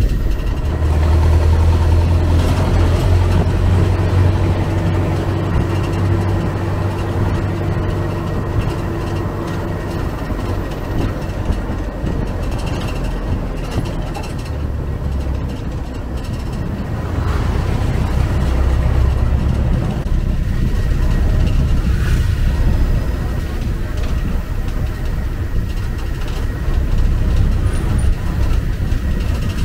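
Motor vehicle engine and road noise: a deep rumble that grows louder and softer several times, with voices in the background.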